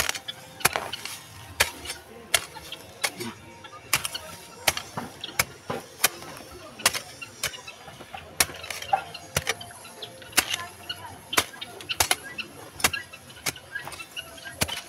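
Long-handled hand hoe chopping into soil while digging a hole: a sharp strike a little more than once a second, over and over.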